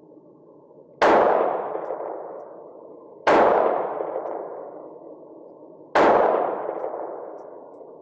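Three shots from a Taurus Spectrum .380 ACP pocket pistol, slow fire, about two and a half seconds apart. Each shot is a sharp crack that trails off over about two seconds.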